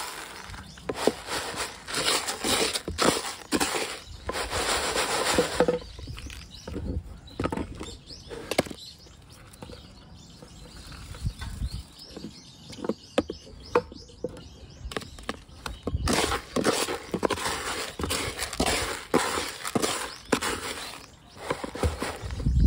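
Akadama bonsai soil granules poured from a scoop into a plastic tub: a rattling hiss of grains striking the plastic, in one long pour in the opening seconds and another about two-thirds through, with scattered clicks of grains and scoop between.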